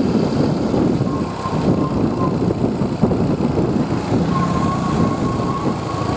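Heavy diesel bus engine and road noise, a steady low rumble. A thin, steady high tone comes in about four seconds in and holds, rising slightly.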